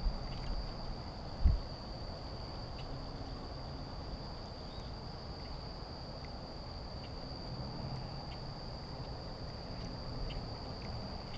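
Insects droning steadily on one high note over a low rumble, with a single short thump about a second and a half in.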